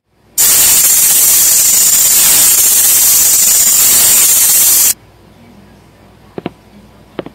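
A loud, steady hiss that starts about half a second in and cuts off abruptly some four and a half seconds later, followed by two short clicks near the end.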